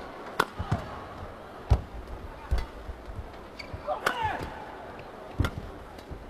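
Badminton rally: sharp racket strikes on the shuttlecock about every one to one and a half seconds, with shoes squeaking on the court floor near the middle, over a low hum of crowd noise in the hall.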